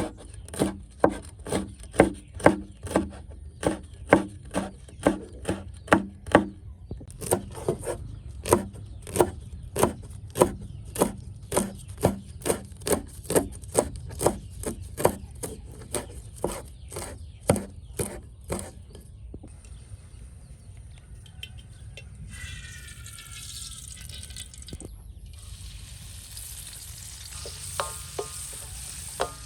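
A knife chopping food on a wooden board in a steady rhythm, about two strokes a second, stopping about two-thirds of the way through; a quieter steady hiss follows.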